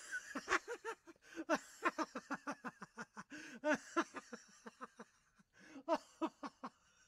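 Laughter: a long run of quick, high-pitched ha-ha syllables that breaks off briefly about a second in and again around five seconds in.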